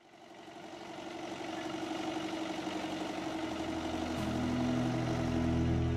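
Farm tractor engine running, fading in from silence and growing steadily louder, with a deeper engine note coming in about four seconds in.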